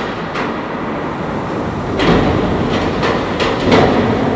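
Three-story steel braced frame shaking on a large shake table under simulated earthquake motion: a loud, steady rattling rumble with repeated sharp bangs and knocks, heavier and deeper from about two seconds in.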